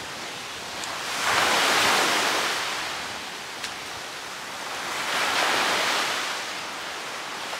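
Small waves washing onto a sandy beach. The surf swells twice, about a second in and again about five seconds in.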